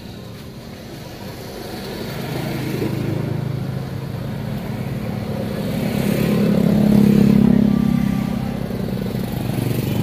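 A motor vehicle's engine going past, swelling to its loudest about seven seconds in and then fading.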